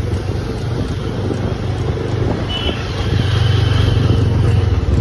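Motorcycle engine running while riding in city traffic, with road and wind noise. The engine rumble grows louder about three seconds in.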